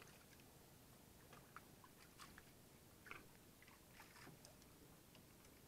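Near silence with a few faint, scattered clicks and crackles.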